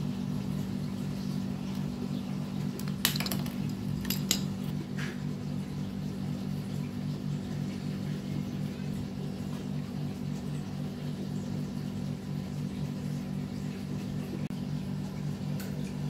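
A few sharp plastic clicks about three to five seconds in, as a small PVC pipe is cut and its fittings are handled, over a steady low hum.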